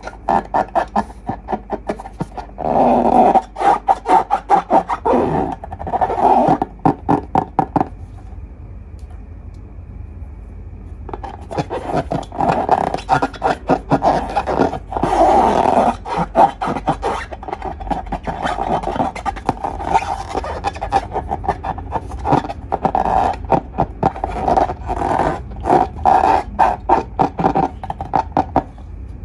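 Glossy slime being squeezed and worked by hand, making rapid wet clicks and squelches in bursts, with a quieter pause about a third of the way through.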